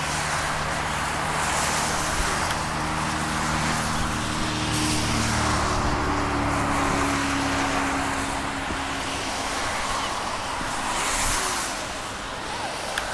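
Twin-engine turboprop airliner on approach, its engines and propellers making a steady drone. Under a constant rushing noise, low hum tones slowly drop in pitch midway through.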